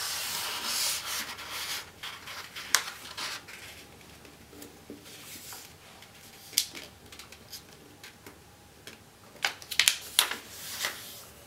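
A sheet of A4 paper being handled and folded, rustling and rubbing, with crisp crackles as the fold is pressed and creased. The rubbing is loudest in the first two seconds, and a cluster of sharper crackles comes near the end.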